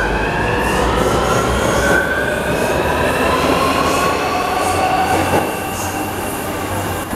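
MTR South Island Line S-Train electric multiple unit pulling away and accelerating: its traction motors whine in several tones that rise steadily in pitch, over the rumble of the wheels on the track. The sound eases off a little about five and a half seconds in.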